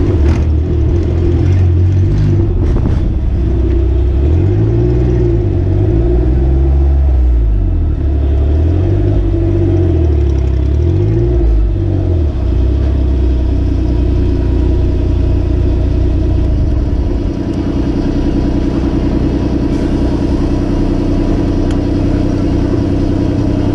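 Daihatsu Mira rollover car's engine heard from on board, revs rising and falling a few times at low speed, then settling to a steady idle for the last several seconds.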